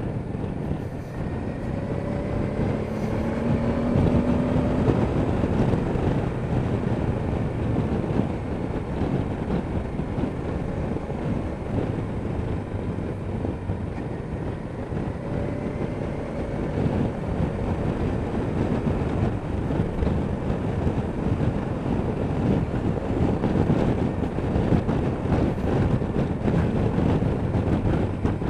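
A Honda Deauville NT650V's V-twin engine running at road speed under heavy wind rush on the microphone. The engine note climbs briefly twice as the bike accelerates.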